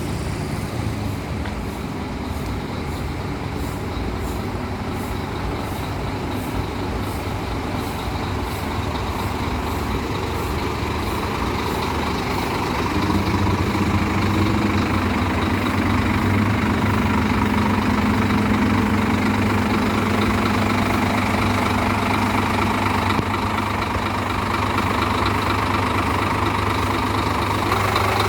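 Tour bus diesel engine running steadily, getting louder about halfway through as the bus comes closer or is revved.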